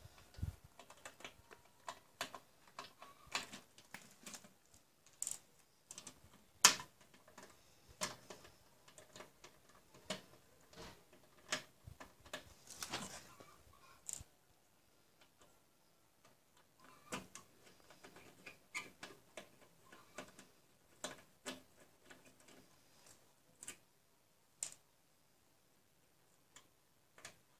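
Irregular small clicks and taps of a screwdriver, screws and sheet-metal parts being handled while an LCD monitor's power board and steel chassis are taken apart. One sharper click about seven seconds in; the clicks grow sparser and fainter after the middle.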